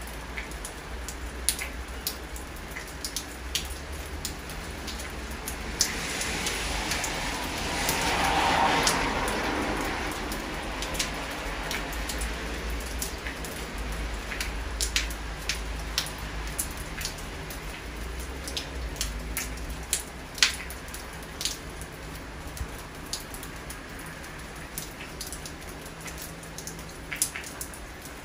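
Steady rain falling, with many sharp drops tapping close by. About six seconds in, a whoosh swells and fades away over some four seconds, the loudest thing heard.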